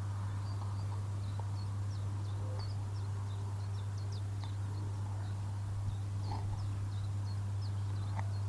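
Small birds chirping and twittering faintly in many short, quick notes, over a steady low hum.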